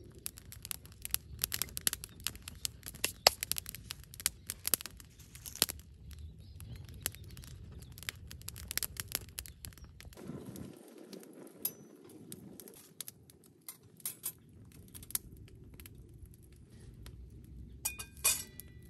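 Wood fire crackling and popping as dry twigs and conifer sprigs burn, the pops thick at first and then sparser. Near the end, a metal clink with a short ring as a steel frying pan is set down on the iron grill grate.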